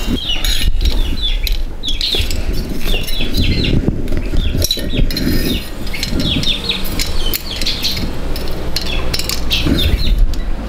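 Small birds chirping repeatedly, over light metal clinks and handling noise from a T-handle wrench turning the cylinder bolts of a grass-trimmer engine.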